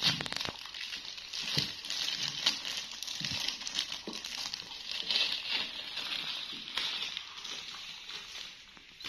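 Crinkling and rustling of thin disposable plastic gloves as jackfruit is pulled apart by hand, with scattered small clicks and soft taps.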